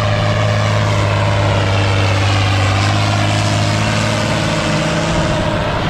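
Farm tractor's diesel engine running hard under heavy load while dragging a weighted tractor-pull sled: a loud, steady drone that holds its pitch throughout.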